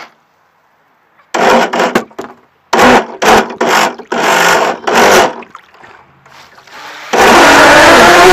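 Several short loud bursts, then about seven seconds in an RC boat's motor comes on suddenly and keeps running loudly and steadily.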